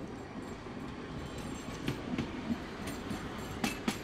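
Croydon Tramlink tram running past on curving track and moving away, with several sharp clacks about two seconds in and again near the end.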